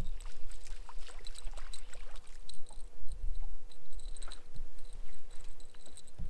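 Water lapping and splashing against a boat hull, over a low rumble of wind on the microphone, with many light scattered ticks and clicks.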